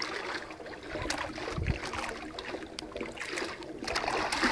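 Pool water splashing and lapping as a swimmer strokes up to the tiled pool edge and grips it, with a short low thump about a second and a half in.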